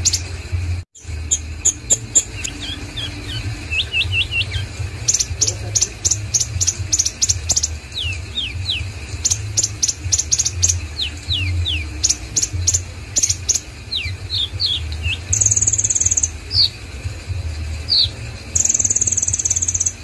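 Male black sunbird singing: rapid high chirps and quick falling whistled notes, broken by two buzzing high trills in the second half, over a steady low hum.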